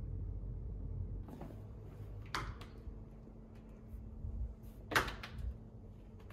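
Wardrobe door being handled and opened: a few sharp clicks and knocks from the door and its fittings, the loudest about five seconds in.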